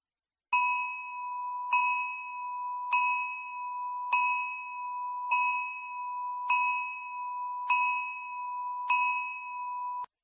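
Countdown timer alarm going off when the time is up: a bell-like electronic chime struck eight times, a little over a second apart. Each strike rings on until the next, and the sound cuts off suddenly near the end.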